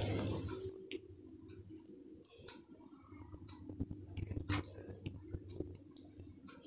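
A hiss that cuts off just under a second in, then scattered faint clicks and light taps over a steady low hum.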